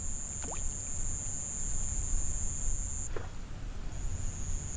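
Night insects keep up a steady high-pitched trill that breaks off for about a second near the end and then resumes, over a low rumble. Two short falling chirps sound, about half a second in and again about three seconds in.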